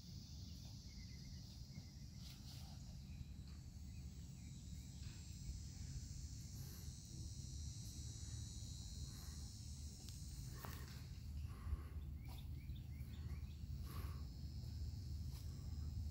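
Insects trilling steadily in a high, even band, over a low rumble, with a few short clicks and knocks in the second half, the sharpest about twelve seconds in.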